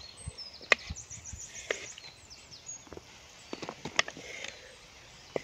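A wooden ladle scraping and knocking against a clay pot as cooked fry is scooped out onto leaves. There are a few sharp knocks, about a second in, near two seconds and around four seconds in. Small birds chirp high and thin in the background.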